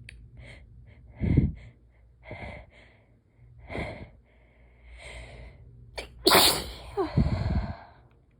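A woman sneezing: a few short, sharp breaths build up, then a loud sneeze bursts out about six seconds in, with a second loud burst straight after it.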